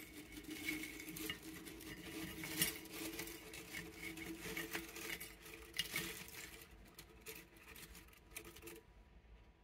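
Stacked Pringles nori (seaweed) potato crisps sliding out of their can onto a ceramic plate, a run of light, brittle clicks and rustles as the hand guides and spreads them.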